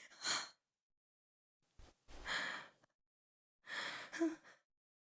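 A person breathing heavily in gasps and sighs: three loud breaths about every two seconds, with silence in between.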